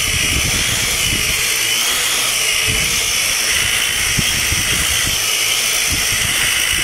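A JJRC H31 quadcopter's four brushed motors and propellers running in a low hover, a steady high-pitched whine over an uneven low rumble.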